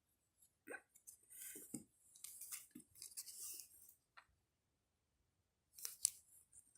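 Faint sticky crackles and squelches of a homemade detergent-and-glue slime being handled and pulled, clinging to the fingers. The noises come in scattered clusters, a run in the first half and another briefly near the end.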